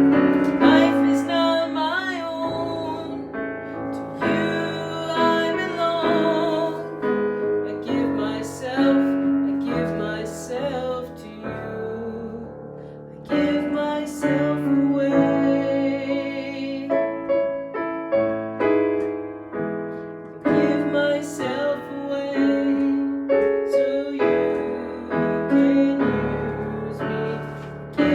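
Piano music: chords struck and left to ring, changing every second or two.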